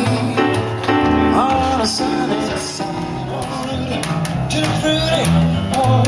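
Live duo of a Yamaha stage piano and a plucked upright double bass playing a swing/rockabilly tune, the bass walking in steady low notes under the piano chords.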